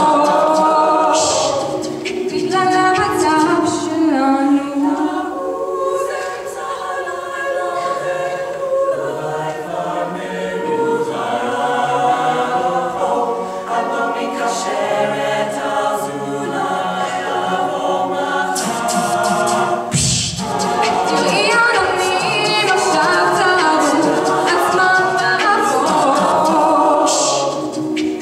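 A mixed male and female a cappella group singing a Hebrew song in close harmony through microphones, with a woman at the front singing into a handheld mic.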